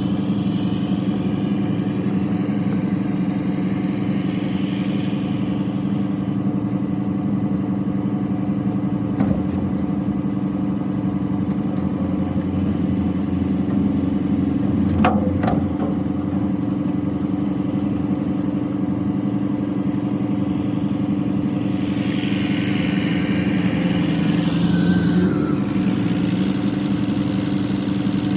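Diesel engine running steadily at an even speed. Two sharp knocks come about nine and fifteen seconds in, and a rush of higher noise rises and fades near the end.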